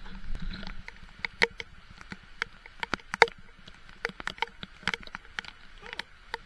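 Raindrops tapping irregularly on the camera, a few sharp taps a second, over a faint rush of flowing water.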